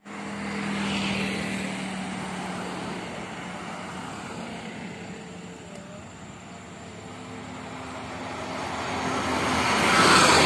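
Road vehicles passing: a car drives by about a second in, then a large coach grows steadily louder, its engine and tyres loudest as it passes close near the end.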